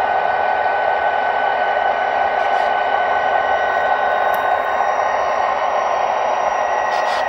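O-scale model GP35 diesel locomotives running on the track, a steady mechanical drone with several constant tones and a few faint ticks.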